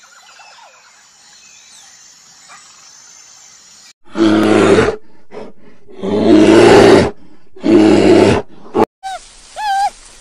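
Brown bear roaring three times, each roar about a second long, starting about four seconds in.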